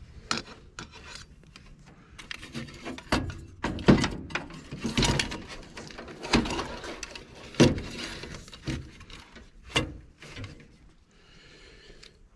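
Hands handling a small electrical box and its wiring at a furnace cabinet: irregular knocks, taps and rubbing, with a few sharper knocks standing out.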